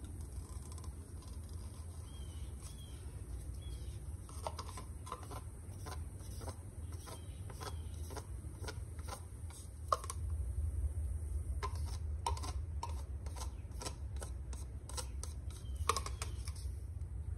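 Wooden craft stick stirring acrylic paint in a plastic cup, knocking and clicking against the cup's sides in quick irregular strokes, over a steady low hum.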